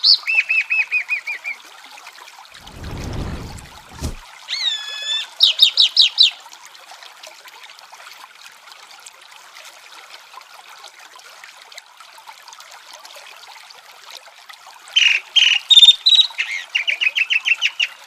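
Chalk-browed mockingbird singing in three bursts of quick repeated notes, near the start, about five seconds in, and from about fifteen seconds on, with long pauses between, over a steady faint wash of running water. A brief low rumble comes about three seconds in.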